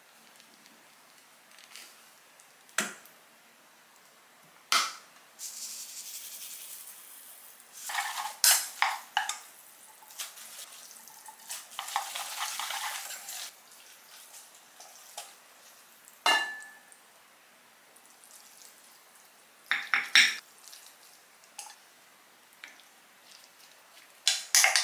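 Kitchen handling sounds: dishes and utensils knocking and clinking now and then, one clink ringing briefly, with two stretches of a hissing, rushing noise like running water or food hitting a hot pan.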